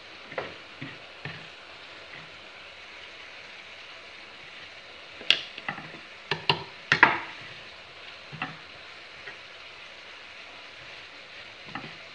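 Chopped turnip greens (cima di rapa) being scraped off a wooden cutting board with a knife and dropped into a hot pan, which sizzles steadily. Sharp knocks and scrapes of the knife on the board come a few at a time about a second in, and loudest in a quick cluster about five to seven seconds in.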